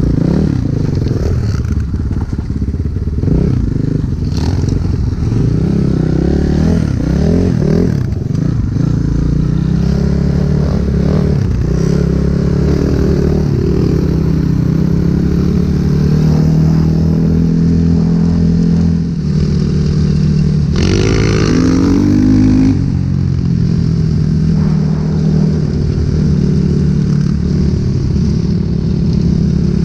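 Enduro motorcycle engines running as two dirt bikes ride together. The nearer engine pulls up through the gears, rising and falling in pitch, with one brief high rev about two-thirds of the way through, over the scrape and clatter of the ride.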